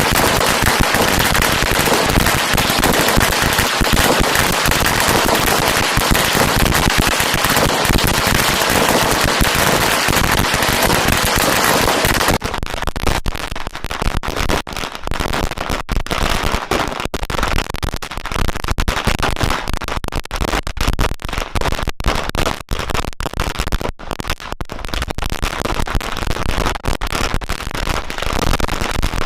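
Firecrackers going off in a rapid barrage: a dense, continuous crackle for about the first twelve seconds, then abruptly thinning to a fast, irregular run of separate sharp bangs.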